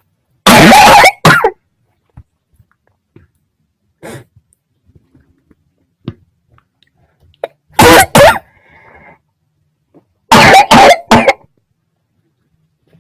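A person coughing in three loud fits: two coughs about half a second in, two more near eight seconds, and three in quick succession a little after ten seconds.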